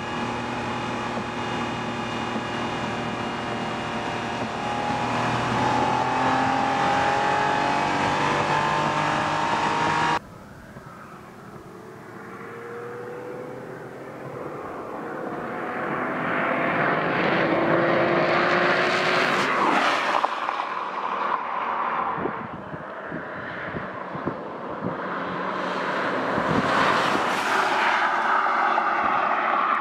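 Acura NSX's mid-mounted V6 engine pulling hard, its note rising steadily for about ten seconds. The sound cuts off suddenly. Then the car's engine builds as it approaches and passes close by, and a second drive-by follows near the end.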